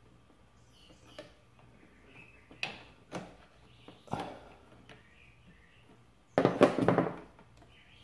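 Metal open-end wrench clicking and knocking against the choke cable's plastic mounting nut and the handlebar as the nut is loosened: a few light knocks, then a louder clatter about six and a half seconds in.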